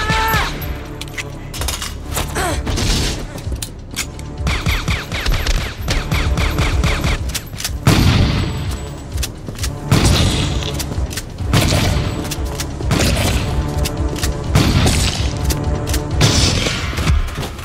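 Movie gunfire: many shots fired in quick succession, pistol fire among them, with a few heavier blasts about eight and ten seconds in, over film score music.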